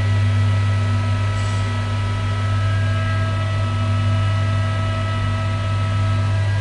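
1974 KONE traction elevator running: a steady electrical hum with a strong low drone and several fainter steady tones above it.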